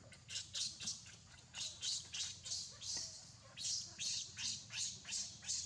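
Infant macaque screaming in a rapid series of shrill cries, about three a second, each dropping in pitch. These are the distress cries of a baby left on the ground, begging its mother to carry it.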